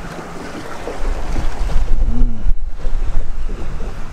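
Wind buffeting the microphone on a small fishing boat, over the wash of the sea. The low rumble grows much stronger about a second in.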